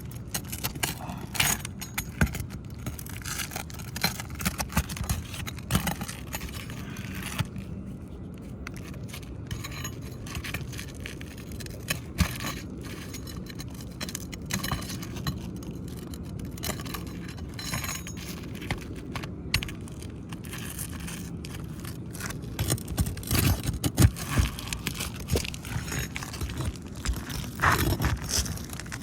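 Staples being pried out from under old asphalt roof shingles: repeated metal-on-metal scraping and sharp clicks, busier and louder near the end.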